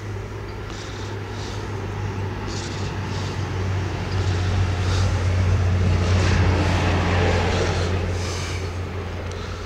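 A motor vehicle's engine drone, getting louder to a peak about six seconds in and then fading, as a vehicle passes by.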